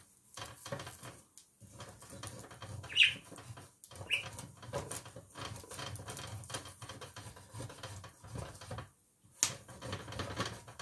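Wooden spatula scraping and knocking on the ridged plate of an electric grill in short, irregular strokes, working loose egg that has stuck to the plate. A few sharper clicks stand out, about three seconds in and again near the end.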